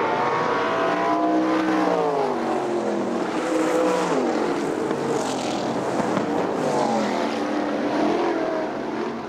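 Winged sprint car engines at racing speed, several cars passing, their pitch rising and falling as they go by.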